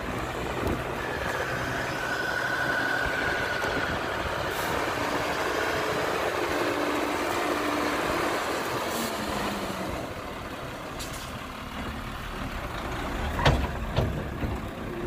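Hyundai dump truck's diesel engine running steadily while its hydraulic hoist tips the bed and the load of soil slides out, with a held whine in the first few seconds. Two or three sharp metal knocks near the end.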